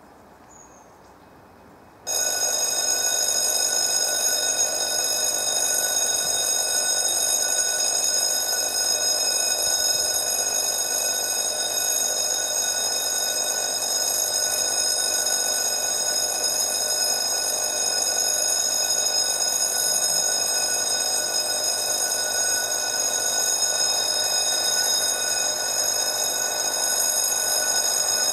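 Railway level crossing warning bell starting suddenly about two seconds in and then ringing steadily: an electronic ringing of several high tones, the signal that a train is approaching and the barriers are coming down.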